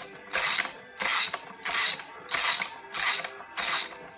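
A ratchet wrench clicking in steady back-and-forth strokes, about one and a half a second, unscrewing the threaded oil strainer plug from the bottom of a Ducati Monster 1100S engine.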